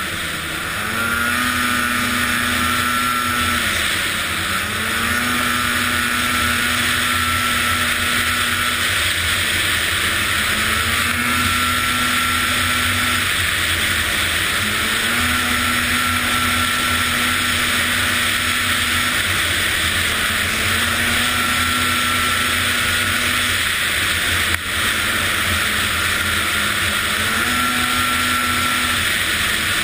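Arctic Cat ZR800 two-stroke snowmobile engine running, its revs held steady for a few seconds at a time, then dipping and climbing back, over and over. The owner suspects the unit's running bugs come from bad fuel injectors.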